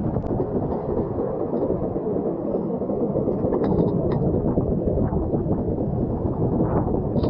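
Steady, muffled rumble of seawater washing over intertidal rocks, heard from at or just under the water's surface.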